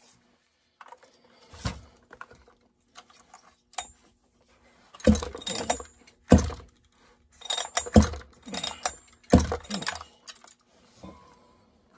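Husqvarna 572XP chainsaw's recoil starter pulled about five times, roughly a second and a half apart, each pull a whir that falls quickly in pitch as the engine turns over without firing, with small clicks of handling between. The engine has oil in it and no decompression valve, which makes it thumpier than normal to pull.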